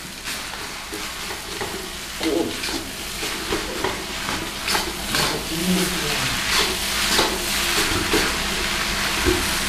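Fried rice sizzling in a wok while a spatula stirs it, the scraping strokes coming again and again through the sizzle. The sizzle grows louder about halfway through.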